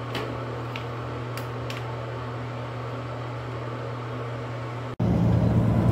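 Wall-mounted hotel hair dryer running with a steady hum and airy rush. About five seconds in, the sound cuts abruptly to louder road and engine rumble inside a truck cab.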